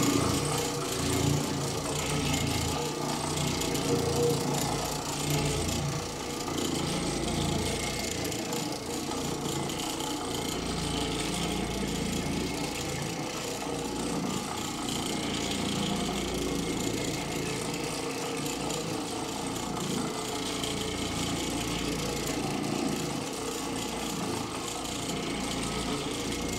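Oreck Orbiter orbital floor machine running steadily, its pad scrubbing across carpet in very-low-moisture carpet cleaning.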